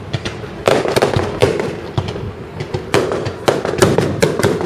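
Aerial firework shells bursting in a quick, irregular run of sharp bangs, some coming in clusters less than half a second apart.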